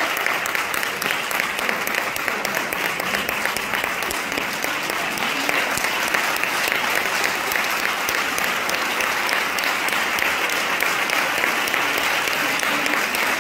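Audience applauding steadily: dense, sustained clapping that doesn't let up.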